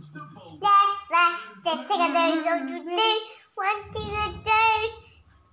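A young girl singing a short tune in high, held notes, which stop shortly before the end.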